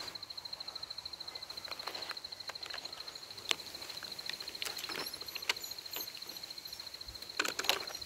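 An insect trilling steadily at a high pitch, with scattered faint clicks.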